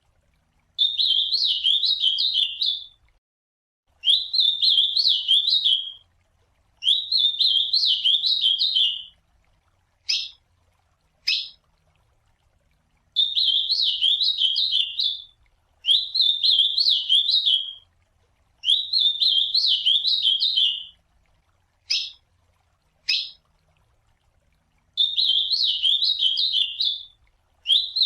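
Ultramarine grosbeak (azulão) singing: a warbled phrase of about two seconds, repeated over and over with short pauses between. Twice, in the middle and again about two-thirds of the way through, the song gives way to a pair of short, sharp call notes.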